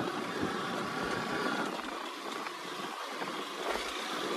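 Motorbike under way with three riders aboard: a steady rushing engine and road noise with a faint thin whine. The bike is straining under the load of the three riders.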